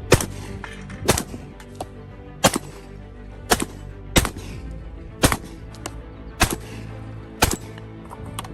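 Shotgun fired repeatedly, about eight sharp shots spaced roughly a second apart, some at slightly uneven intervals, over background music.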